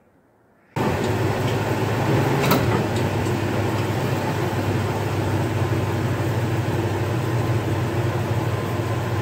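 Pickup truck engine idling steadily with a low hum, starting abruptly about a second in, with a faint click or two over it.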